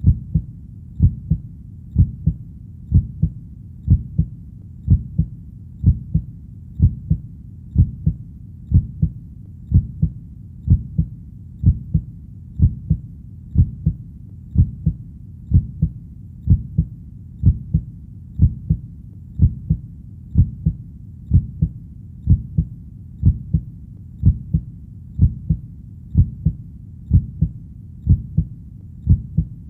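Heartbeat, a steady lub-dub double thump about once a second (roughly 60 beats a minute), deep and low-pitched, over a faint low rumble between the beats.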